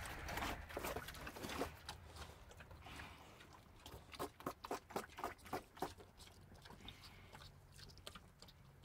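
American Guinea Hog cross piglets chewing wet grain from a feeding tub: smacking chomps, with a quick run of about four a second midway that fades out toward the end.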